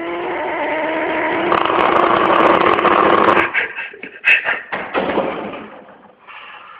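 Sleeping dog snoring loudly: one long snore with a steady buzzing pitch that grows for about three and a half seconds, then breaks into a run of short choppy snorts, followed by a quieter breath.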